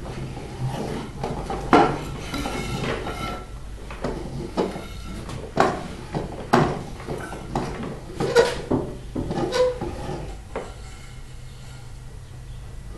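Homemade toy logging truck and jammer crane being worked by hand, lifting a load of toy logs: irregular knocks, clicks and scraping of the toy's parts and the logs, growing sparser and quieter near the end.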